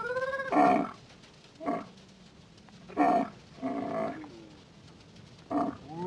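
A dromedary camel making about five short, loud bellowing calls a second or so apart, some rising in pitch.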